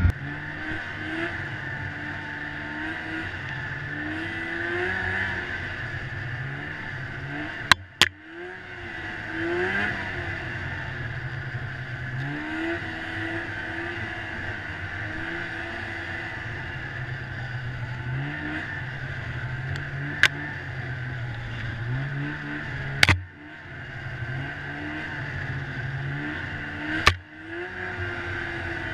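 Snowmobile engine running along a trail, its pitch rising and falling with the throttle. A few sharp knocks cut through, and the engine briefly drops off after some of them.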